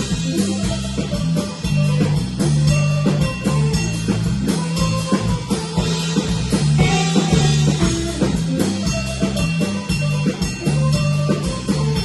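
Instrumental trio of electric guitar, bass guitar and drum kit playing a steady, rhythmic groove.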